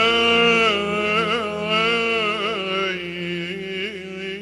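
Byzantine chant: a solo voice sings long, ornamented notes over a steady held drone note, and grows softer after about three seconds.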